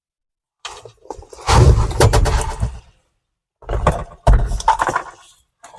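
A run of clicks, knocks and scraping thumps from handling, in two bursts a second or so apart.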